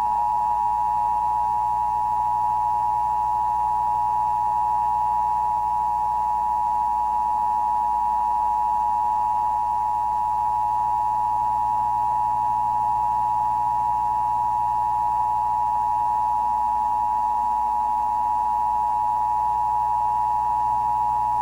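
Emergency Broadcast System attention signal: two steady tones sounding together, 853 Hz and 960 Hz, held unbroken and at an even level.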